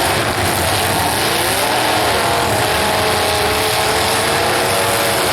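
Several demolition derby car engines running and revving at once, their pitches rising and falling over each other.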